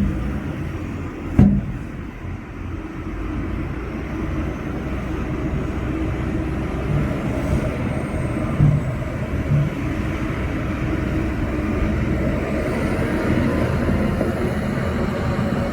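Heavy diesel earthmoving machinery running steadily with a low rumble, with a sharp knock about a second and a half in and two more near the middle.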